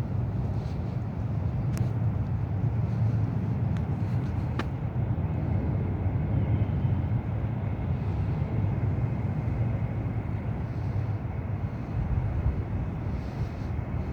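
Steady low rumble of a motor or vehicle, with a couple of faint clicks in the first few seconds.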